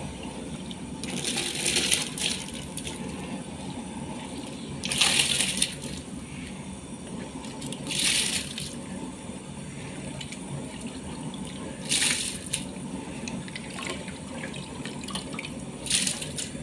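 Short bursts of running or splashing water, five in all, a few seconds apart, over a steady low hum.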